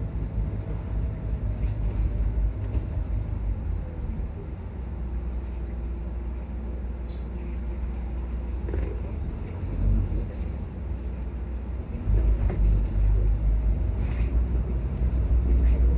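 Volvo double-decker bus's engine and road rumble heard from inside the upper deck, steady and low, growing louder about twelve seconds in.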